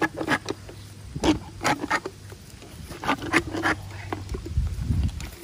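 Hand float (dental rasp) filing a horse's teeth: a string of short, rough rasping strokes in small irregular groups. The float is reducing sharp edges on the teeth to make the horse comfortable.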